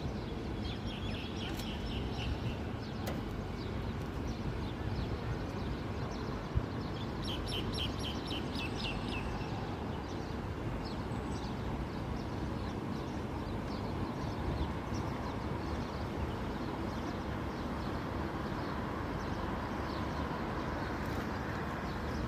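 Steady outdoor hum of distant road traffic, with bursts of bird chirping about a second in and again around eight seconds in.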